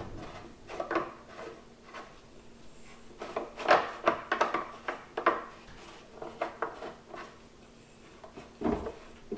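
Metal legs and stand parts of a Cadac Carri Chef 2 portable gas barbecue being handled and fitted together: irregular light knocks, clinks and scraping, the loudest knock about a third of the way in.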